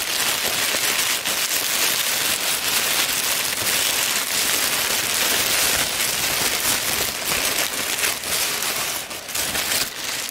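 Tissue paper crinkling and rustling continuously as hands unwrap and crumple it, a dense crackle that eases off near the end.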